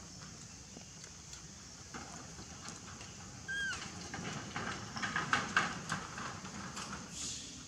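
A short high chirp that slides down, about three and a half seconds in, then a run of crackling rustles of dry leaf litter.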